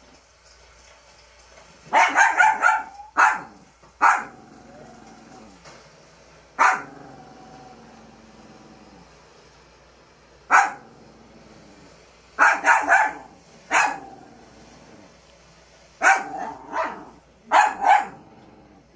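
Small dog barking in short, sharp barks: a quick string of barks about two seconds in, single barks scattered through the middle, and further quick strings of barks past halfway and near the end.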